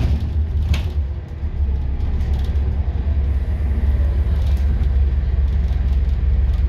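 Scania N230UD double-decker bus heard from the upper deck while under way: its five-cylinder diesel engine and road rumble make a steady low drone. A sharp click comes a little under a second in, and the drone eases briefly just after.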